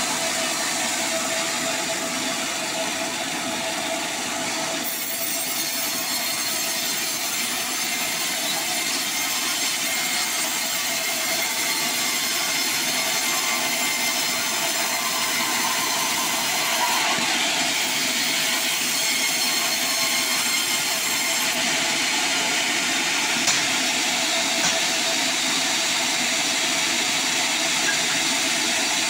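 Sawmill bandsaw ripping a sonokeling (Indian rosewood) log lengthwise. The blade gives a steady, dense noise with a steady tone in it, and it does not let up.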